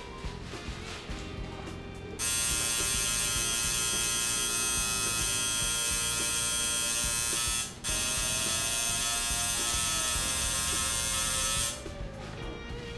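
Electric tattoo machine buzzing steadily as the needle works on skin. It starts about two seconds in, cuts out briefly near the middle, and stops about a second before the end.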